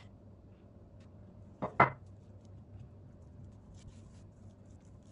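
Two quick knocks close together, about two seconds in, from the ceramic bowl and spoon used to pour tahini. Then faint, soft scraping and ticking as the tahini is spread over the rolled-out dough.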